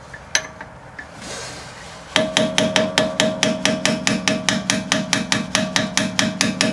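Rapid, even light taps of a hammer on a metal punch, about six a second and each with a ringing tone, starting about two seconds in. The punch is driving the emergency brake cable's retaining ring out of the rear brake caliper on a 2012 Mazda 3.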